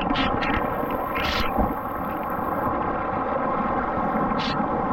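Swimming-pool water splashing and churning right at the camera held at the surface, a steady rush with a few short splashes, one about a second in and one near the end.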